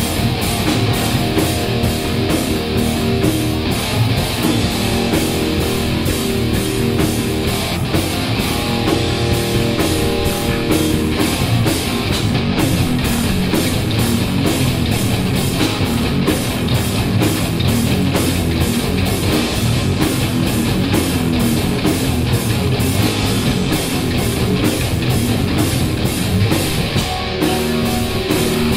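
Live heavy metal band playing loud, with distorted electric guitars, bass guitar and a steady drum beat.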